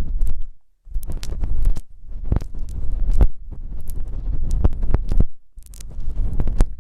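Close-miked rubbing and scratching on an ASMR ear microphone: a loud rustling rumble full of crackles and sharp clicks, which breaks off twice, near the start and about five seconds in.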